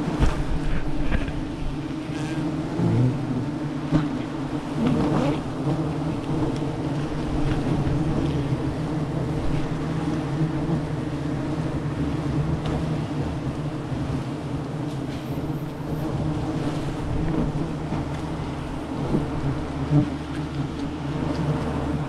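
A swarm of wild honey bees buzzing in a steady, continuous drone around an opened nest, with a few short knocks from handling the comb.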